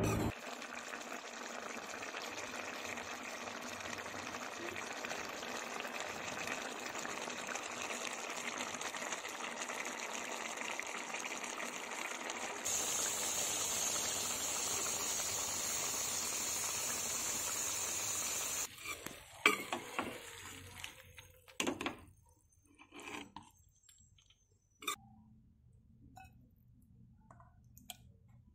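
Pork curry simmering in a wok, a steady bubbling hiss that gets louder about 13 seconds in. It stops after about 18 seconds, and a ladle then clinks and knocks a few times against the pan and the plate as the curry is served.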